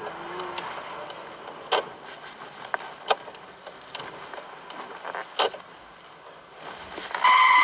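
Car interior: a low steady hum with a few scattered sharp clicks. Near the end the tyres suddenly squeal, loud and steady, as the car skids under hard braking.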